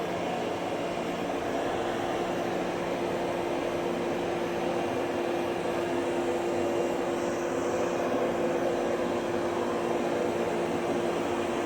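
Roemo Pro robot vacuum cleaner running: a steady hum over even motor and brush noise.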